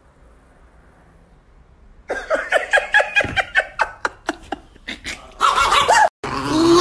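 Chihuahua yapping in a quick run of short, high barks, about four a second, starting about two seconds in, mixed with a man's laughter.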